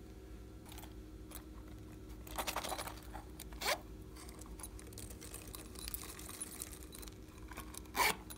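Plastic watermelon-shaped container being handled and opened over slime: a brief rattling rustle, a sharp click a little over halfway through the first half, then a light pattering of confetti sprinkled onto the slime, and another sharp click near the end.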